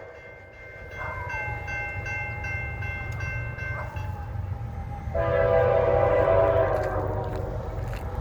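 Approaching diesel freight locomotive sounding its horn for a grade crossing: a held horn note, then a louder multi-note horn blast about five seconds in that lasts nearly two seconds. Underneath are the steady low rumble of the train and the repeated ringing of the crossing-signal bell.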